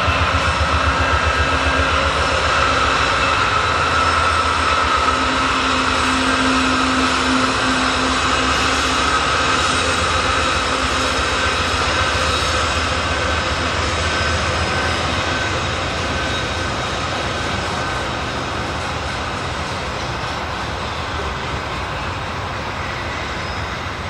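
Diesel freight locomotive passing close by, its engine rumbling with a steady whine, followed by loaded garbage-container cars rolling past on the rails. The sound fades gradually over the last several seconds.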